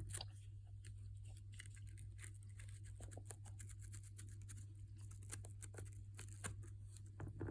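Faint, irregular scratching and small clicks of a manual toothbrush's bristles scrubbing dirt out of an iPad's charging port, over a low steady hum.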